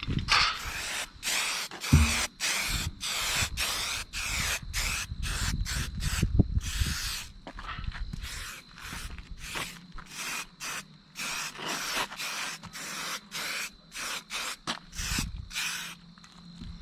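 Aerosol spray can of primer hissing in short repeated bursts, about one or two a second, with brief gaps between sprays.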